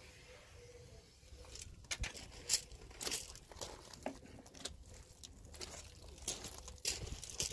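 Footsteps crunching on loose pebble gravel: irregular sharp crunches and clicks, starting about a second and a half in.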